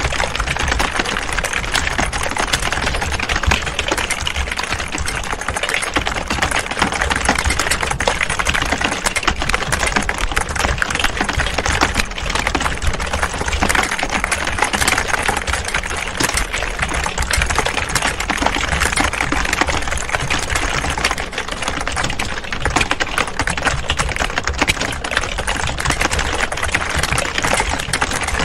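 Many people typing at the same time on computer keyboards: a dense, continuous clatter of overlapping key clicks.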